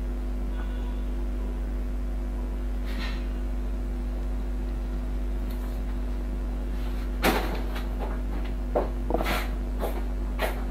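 A steady electrical hum, then from about seven seconds in a handful of sharp knocks and clicks from the laptop being handled on the bench, the first the loudest.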